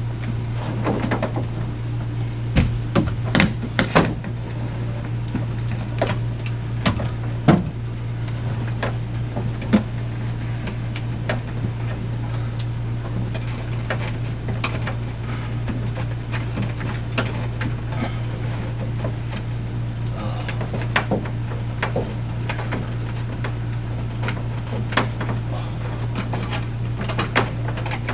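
Scattered knocks, clicks and scraping as electrical cable and a fish wire are worked through a tight bend in an RV ceiling, with a cluster of sharper knocks in the first few seconds, over a steady low hum.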